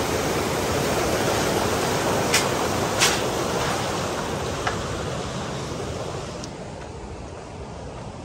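Steady rushing of mountain water from a river or cascade, fading down over the last few seconds. A few sharp clicks sound over it.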